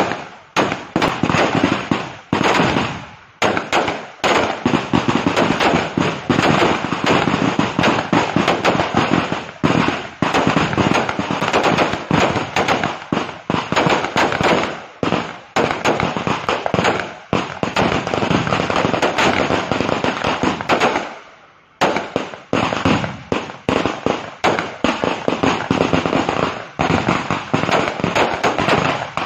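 Firecrackers going off in a rapid, continuous barrage of sharp bangs and crackles. The barrage breaks for about a second roughly twenty-one seconds in, then starts again.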